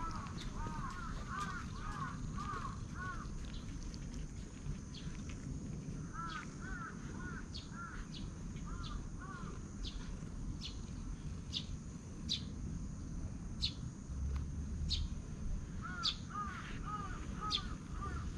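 Birds calling: bursts of quick, repeated arched chirps, with sharp high notes about once a second through the second half, over a steady low rumble of outdoor background noise.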